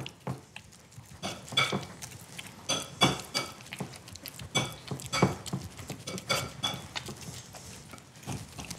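Small metal ladle mashing fried green bananas in a ceramic bowl: irregular knocks and clinks of the ladle against the bowl, about two a second, some ringing briefly.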